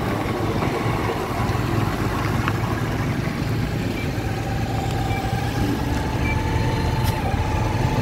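A motor vehicle's engine running steadily, a continuous low hum under even mechanical noise, with a faint thin whine in the middle.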